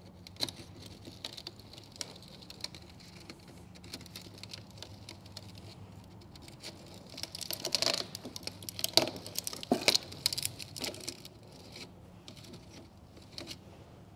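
A multi-tool picking and pulling at the stainless wire braid over a semi truck's exhaust flex pipe (bellows): scattered light metallic clicks, scrapes and crinkles of wire strands being pried apart, busiest toward the middle, over a faint steady low hum. The braid is being opened over a broken bellows joint that has been leaking exhaust.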